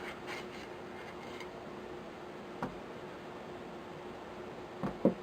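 Small parts of a Savage Model 64 rifle being handled as the action is slid apart: faint rustling at first, one light click midway, then two sharper knocks close together near the end, over a faint steady hum.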